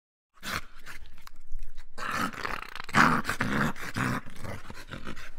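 German Shepherd growling as it gnaws a bone, with sharp crunching clicks of teeth on bone. The sound starts abruptly about half a second in.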